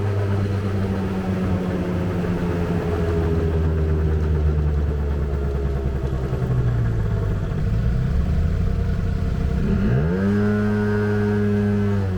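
Small scooter engine running at idle while its carburettor screw is adjusted. Its speed sags a little, then about ten seconds in rises quickly and holds at a higher steady speed.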